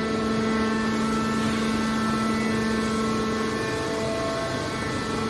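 Scrap metal baler shear's hydraulic power unit running with a steady droning hum. The hum has a held pitch and does not change in rhythm.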